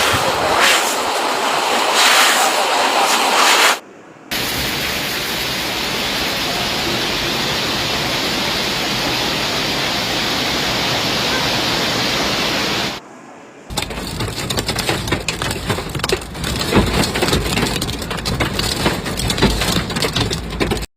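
Heavy rain and hail of a hailstorm, a dense steady hiss in three stretches broken by two short gaps. In the last stretch the hailstones strike a hard surface in a rapid, irregular clatter of sharp taps.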